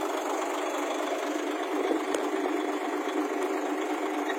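Mobile crane engine idling steadily, with one light knock about two seconds in.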